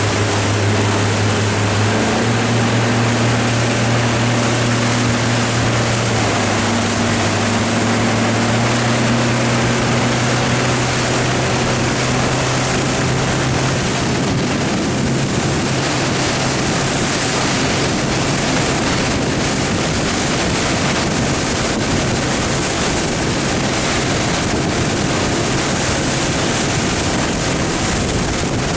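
Jet RIB boat's BRP Sea-Doo 100 hp engine and jet drive running under way, with the rush of water and wind. The engine's pitch steps up several times in the first nine seconds or so, then its tone sinks into the steady rushing noise.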